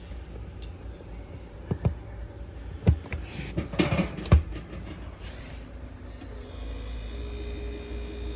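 Sharp knocks and clatter of hands fitting the new start relay and overload onto the refrigerator compressor's terminals. Then, about six seconds in, a steady hum starts from the fridge's machinery compartment and keeps going.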